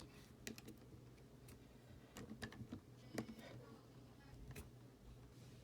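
Near silence with scattered faint light clicks and taps, about half a dozen, over a low steady hum.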